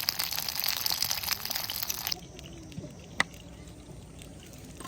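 Rushing, splashing stream water that cuts off abruptly about two seconds in, leaving a quieter background with one sharp click.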